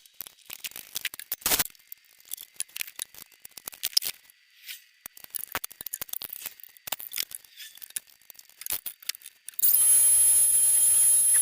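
Scattered light clicks and taps of tools and workpieces being handled at a woodworking bench. Near the end, a loud steady whirring noise with a thin high whine starts suddenly.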